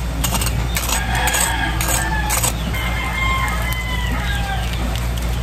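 Chickens clucking and a rooster crowing in the background, the calls overlapping and sliding in pitch, over a steady low hum. A few sharp clicks come in the first couple of seconds.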